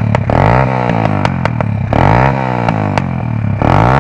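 Small single-cylinder pitbike engine revved three times at a standstill, each rev rising and falling in pitch about every second and a half, over a steady idle.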